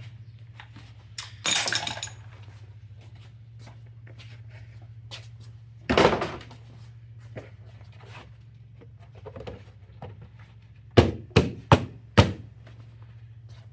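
Hand-work clunks and knocks while refitting parts in the engine bay: a short clattering scrape near the start, a loud clunk about six seconds in, and four sharp knocks close together near the end, over a steady low hum.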